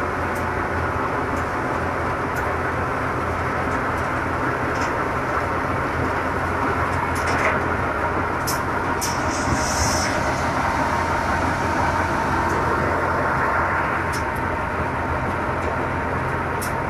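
Tractor-driven threshing machine (patoz) running steadily, a loud continuous mechanical drone with scattered sharp clicks and a brief hiss about ten seconds in.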